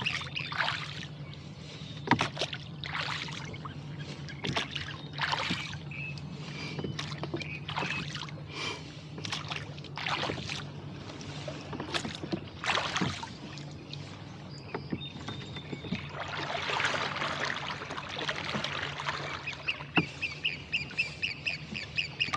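Oars of a rowboat dipping and splashing in irregular strokes, with reeds brushing against the hull as the boat works in along a reed bed. Near the end a water bird calls in a fast series of short repeated notes, over a low steady hum.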